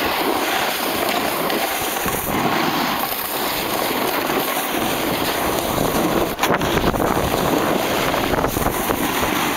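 Wind rushing over the camera microphone and a snowboard sliding and scraping over hard-packed snow while carving down a slope, a loud, steady hiss. There is one sharp knock about two-thirds of the way through.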